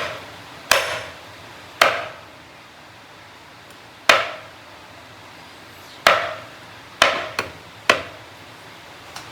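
Heavy kitchen knife chopping down onto a cutting board: about eight sharp, separate chops at uneven intervals, each dying away quickly.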